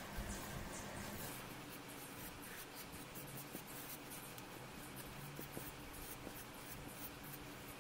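Metal palette knife scraping and spreading acrylic paint across paper in a run of short, faint strokes.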